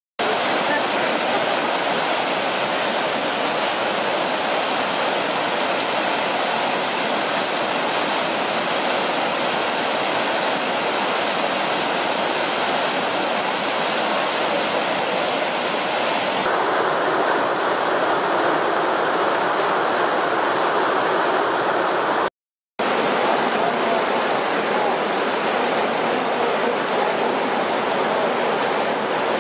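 Mountain stream cascading over boulders in small waterfalls: a steady rushing of white water. It cuts to silence for a moment about two-thirds of the way through, then goes on.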